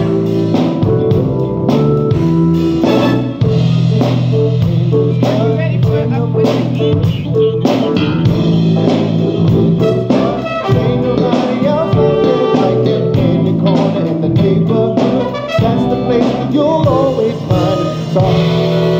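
Live band playing a jazzy groove: a drum kit keeping a steady beat under keyboards and held chords, loud and continuous.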